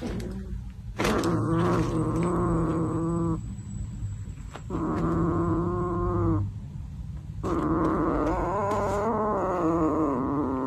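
A kitten giving three long, wavering yowls, each two to three seconds long, with short pauses between them.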